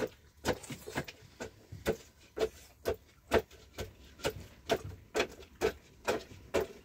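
A steady series of sharp knocks, about two a second.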